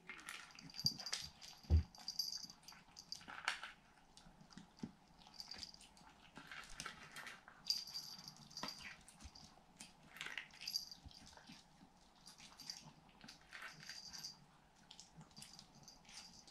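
Pomeranian puppy eating dry kibble from a stainless steel bowl: faint, irregular crunching and chewing in short spells, with an occasional sharp click of the bowl.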